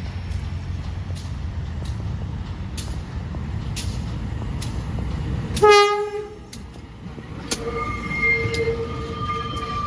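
A train running with a low rumble and a sharp click every second or so, then a short loud blast of its horn a little past halfway. Near the end a longer, quieter horn tone is held for about two seconds.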